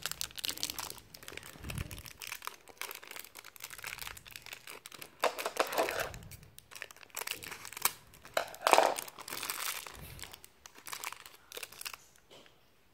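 Crinkly plastic foil wrapper from an L.O.L. Surprise! ball being handled and crumpled, crackling in irregular bursts, loudest about six and nine seconds in, dying down near the end.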